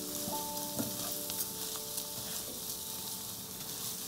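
Carnaroli rice toasting in butter in a nonstick frying pan: a steady sizzle, with a wooden spoon stirring and scraping the grains and small ticks as they shift. This is the toasting stage of a risotto, before the broth goes in. Soft sustained background music tones sound underneath.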